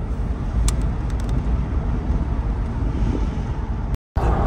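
Steady road and engine noise heard from inside a moving car's cabin, a low rumble of the tyres and motor; it breaks off for a moment near the end.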